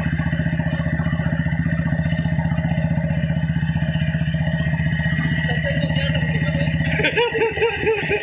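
Royal Enfield Bullet 350's single-cylinder engine running steadily at cruising speed, its exhaust pulsing in an even, rapid beat, heard from the rider's seat.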